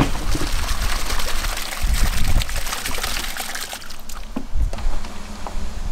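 Water splashing and trickling, with many small clicks and droplets in it; it eases off about four seconds in.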